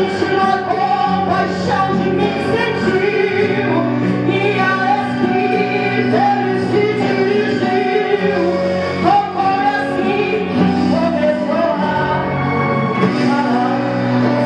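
A woman singing a gospel song into a microphone, with amplified band accompaniment including electric guitar.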